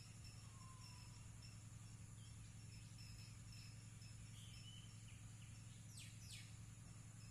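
Faint outdoor ambience: an insect chirping in short, evenly spaced pulses, with two quick falling bird calls about six seconds in, over a low steady hum.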